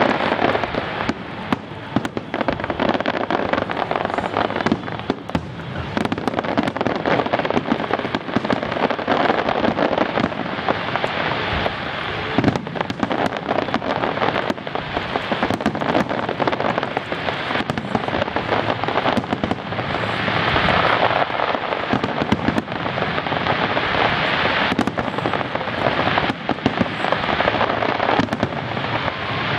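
Aerial fireworks shells bursting in quick succession, a dense run of bangs over a continuous crackle of bursting stars.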